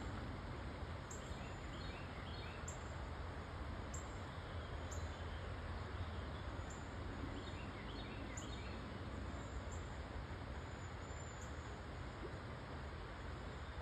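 Steady outdoor background noise with a low rumble, and faint bird chirps in two short clusters, about a second in and again about halfway through.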